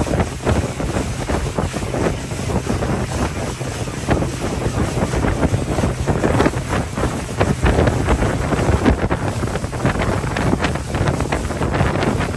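Wind buffeting the microphone on a small motorboat under way across choppy water, over the steady low hum of its motor and the wash of water along the hull.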